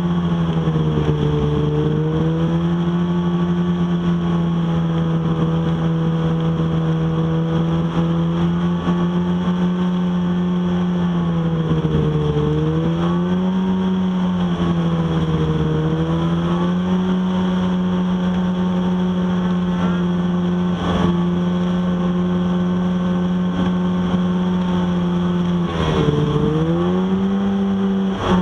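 Snowmobile engine running at a steady high speed under way. Its pitch dips briefly and climbs back three times: about a second in, near the middle, and near the end.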